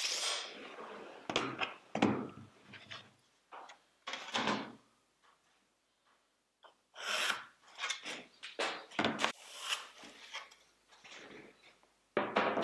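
A steel tape measure retracting at the start, then a string of separate knocks, scrapes and rubs as a large square is slid about and set down on a plywood sheet and a pencil line is drawn along it, with a quiet pause about halfway through.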